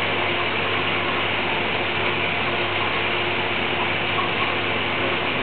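Steady, unchanging machine noise: an even rushing hiss with a low hum under it.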